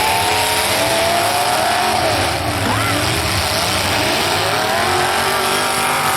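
Several demolition derby cars' engines running and revving at once, their pitches rising and falling against one another over a steady wash of noise.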